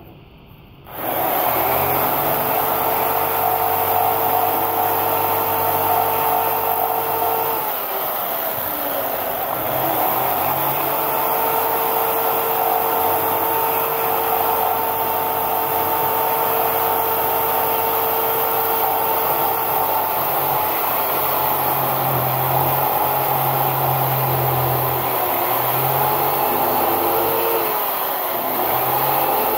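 Jigsaw running and cutting into blue foam board, its motor starting about a second in with a steady whine. The motor slows and picks up speed again a few times as the blade is worked along the cut.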